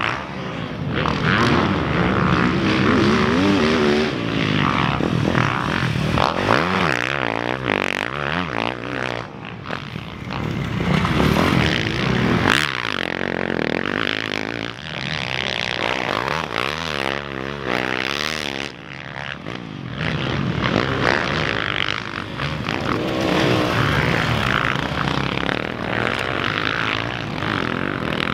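Motocross bike engines revving hard and backing off as riders race over jumps and through corners, the pitch rising and falling again and again.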